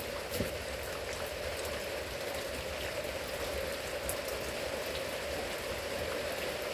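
Steady rain falling, with scattered faint drip ticks over an even hiss.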